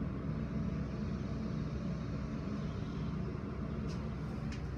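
Elevator car travelling with its doors shut: a steady low hum and rumble, with a faint click or two near the end.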